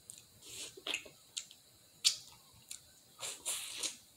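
Close-up eating sounds: a string of sharp clicks and short wet, squishy smacks as crab meat is picked apart by hand and chewed.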